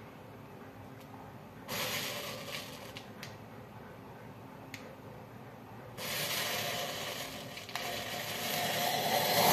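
Match heads packed inside a plastic bottle catching fire in clusters, each flaring with a hiss: a first flare about two seconds in that dies down, a few sharp crackles, then a bigger flare about six seconds in that keeps hissing and grows louder toward the end.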